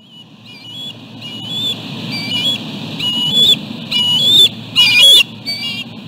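Bald eagle calling: a series of high, whistled piping notes that step upward in pitch in short phrases, growing louder and loudest about five seconds in, over a low steady rush.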